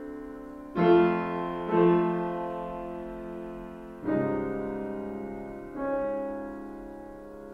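Background piano music: slow sustained chords, a new one struck every one to two seconds and left to fade.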